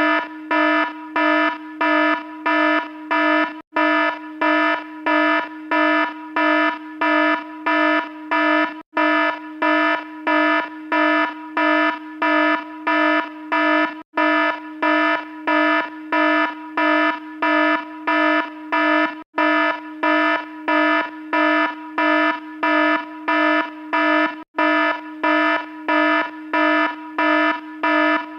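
Electronic alarm sounding a harsh, buzzy tone in rapid repeated beeps, a little under two a second, with a short break about every five seconds.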